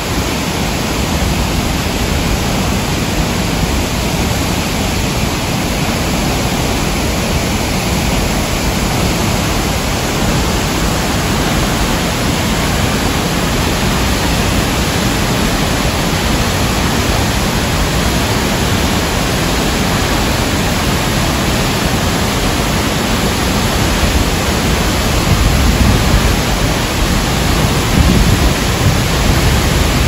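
Texolo waterfall in heavy flow, a steady, loud rush of falling water hitting its plunge pool, growing a little louder in the last few seconds.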